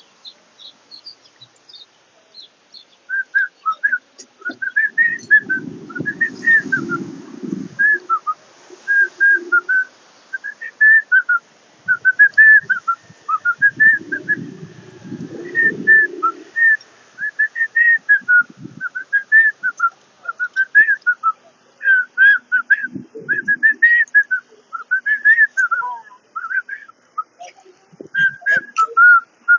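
A long run of short, high whistled chirps, each rising then falling, about two a second, starting about three seconds in. A few bursts of low rumbling noise come in between.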